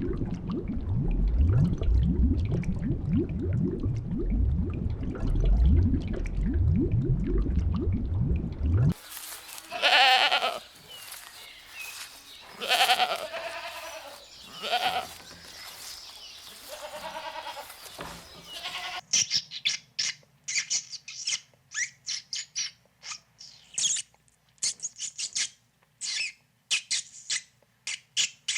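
A run of animal sounds in three parts: for the first nine seconds a dense, low rumbling sound with repeated rising sweeps; then a series of separate bleats from goats or sheep; then, from about nineteen seconds in, rapid high-pitched chirping of small birds.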